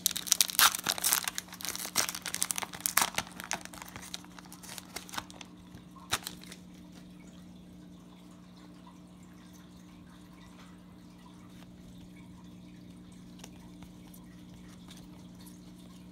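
Foil wrapper of a baseball card pack being torn open and crinkled: a dense run of crackles over the first four seconds or so, then sparser rustles and one last sharp crinkle about six seconds in. After that only a steady low hum.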